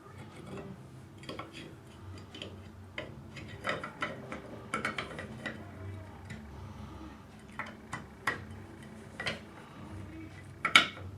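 Irregular small clicks and taps of Mossberg Tactical 22 rifle parts as the trigger assembly is worked into the receiver, with one sharp click near the end, the loudest.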